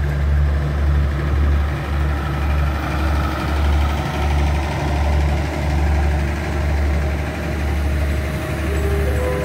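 Low, steady diesel engine rumble with a slow pulsing beat from a State Railway of Thailand passenger train moving slowly past.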